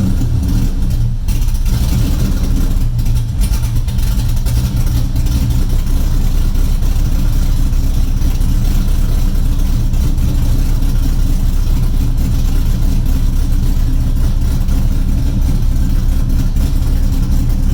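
A 2002 Corvette's cammed LS1 5.7-litre V8, exhausting through long-tube headers, idling steadily.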